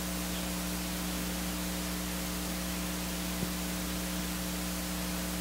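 Steady electrical mains hum with background hiss, with one faint click about three and a half seconds in.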